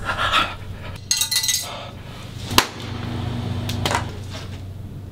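A paper plate and plastic fork dropped onto a hard floor: a brief clatter about a second in, then a sharp knock about two and a half seconds in.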